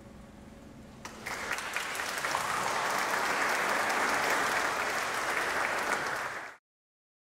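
A small group of guests applauding, starting about a second in and cutting off abruptly near the end.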